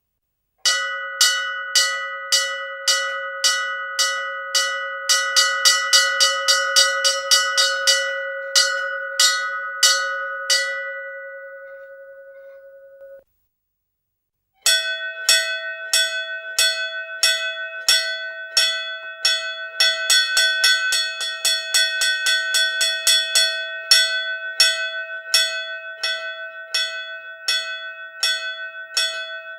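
Hindu temple bell rung repeatedly, its clapper striking about two to three times a second with the tone ringing on between strokes. The ringing dies away and cuts off about 13 seconds in. After a short silence a slightly higher-pitched bell starts ringing the same way.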